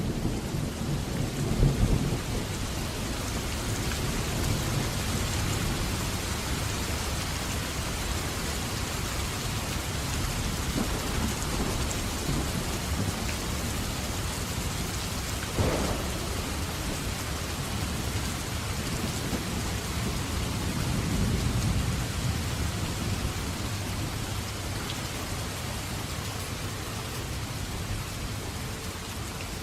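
Steady heavy rain with rolling thunder. A deep rumble fades out over the first two seconds, a sharper clap comes about halfway through, and a softer rumble swells and fades a little later.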